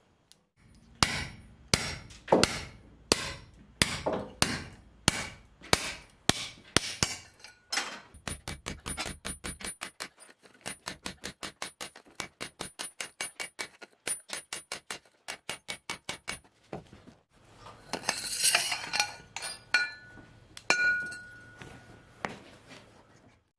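Hammer blows on a steel tube driving a tapered roller bearing down onto a lathe spindle: about ten heavy, ringing strikes, then a quick run of lighter taps, about four a second. Near the end comes a longer metallic clatter and a ringing clink.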